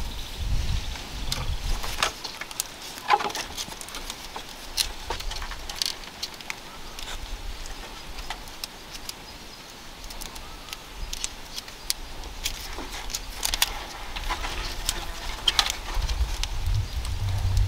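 Thin bamboo strips clicking, scraping and creaking irregularly as they are pulled through and wrapped around the rim of a woven bamboo basket. A low rumble comes in near the end.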